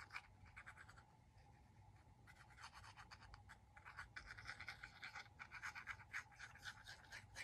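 Faint scratching and small clicks of hands working a squeeze bottle of tacky glue against small wooden hexagon pieces on a cutting mat, thicker from about two and a half seconds in.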